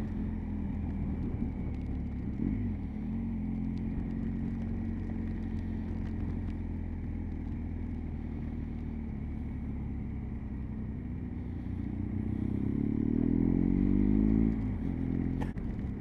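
Motorcycle engine running steadily at road speed, with a brief dip and rise in pitch a couple of seconds in. Near the end it accelerates, rising in pitch and getting louder for about two seconds, then drops off suddenly as the throttle closes.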